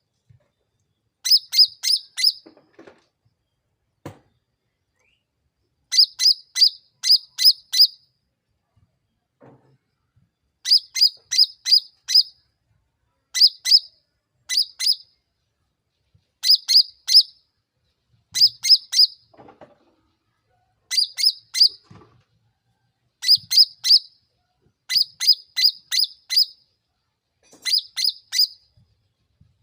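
Cucak ranting (a bulbul) singing in loud bursts of three to five sharp, quick, downslurred notes, repeated every two to three seconds. This is a lure song played to provoke other cucak ranting into answering.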